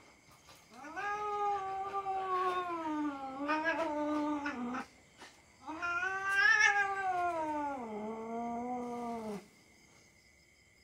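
Domestic cat yowling in protest while a young dog play-bites it: two long drawn-out yowls, each rising and then falling in pitch, with a short break between them. The sound stops about a second before the end.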